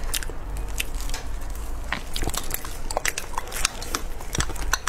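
Close-up eating sounds: irregular sharp, wet clicks and crackles of biting into and chewing a fried, meat-filled bun coated in chili sauce.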